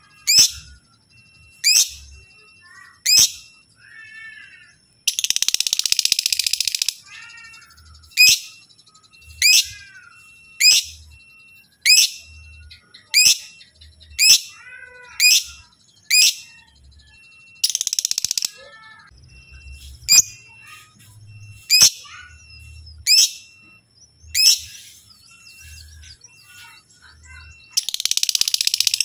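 Lovebird calling: sharp, steeply falling chirps repeated about every second and a half. Three times it breaks into a long, rapid chattering trill lasting one to two seconds (the lovebird's "ngekek"). Softer warbling notes come in between.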